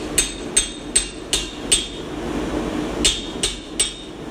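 Hand hammer striking a drift driven through hot steel to enlarge a punched hole. There are five ringing blows, about two and a half a second, then a pause, then three more.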